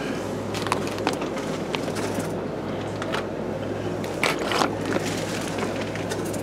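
Plastic fish bags crinkling as they are handled, with a few short sharp crackles, over a steady low hum.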